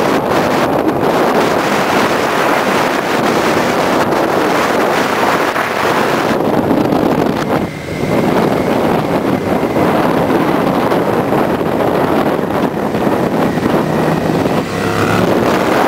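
Wind rushing over the microphone on a moving motorcycle, with the motorcycles' engines running underneath. The rush drops away briefly about halfway through.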